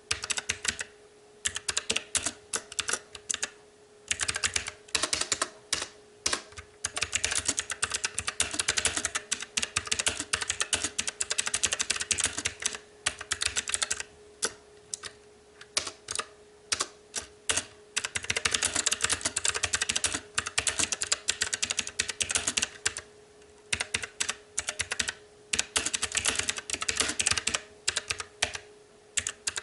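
Fast typing on a STOGA retro-typewriter mechanical keyboard with clicky blue switches: runs of rapid keystrokes broken by short pauses, over a faint steady hum.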